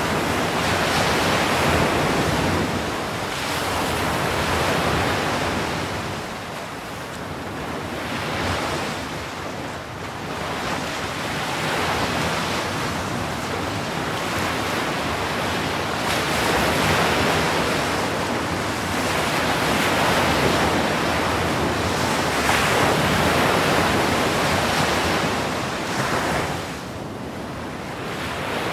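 Ocean surf breaking on the shore: a continuous rush of waves and foam that swells and eases every few seconds.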